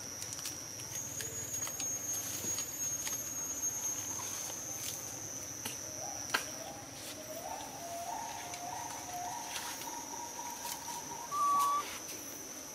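Steady high-pitched drone of insects. A single sharp click comes about six seconds in, a few faint thin calls follow, and a brief louder high squeak sounds near the end.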